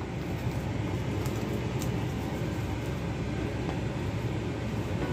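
Steady low background rumble, with a couple of faint light clicks of a steel spoon against a ceramic plate as ghee is spread over a besan roti.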